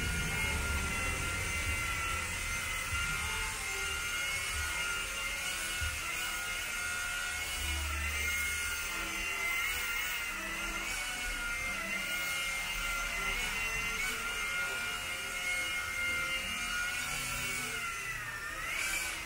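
Small four-channel RC toy helicopter hovering on its altitude hold: a steady high electric motor and rotor whine. Near the end the pitch briefly dips and rises again.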